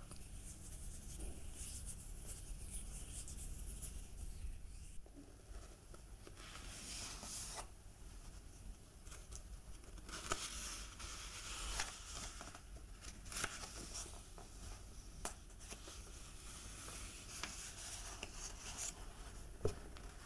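Paperback book handled by hand: fingers rubbing the cover and pages being turned, soft paper rustles with scattered small clicks.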